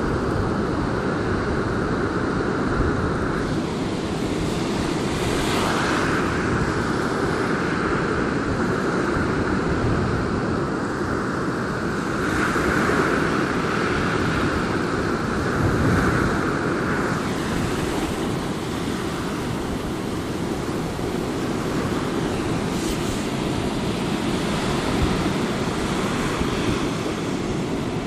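Stormy Black Sea surf breaking and washing up a sandy beach, with strong wind buffeting the microphone. The hiss of the wash swells each time a wave runs in, over a constant low rumble.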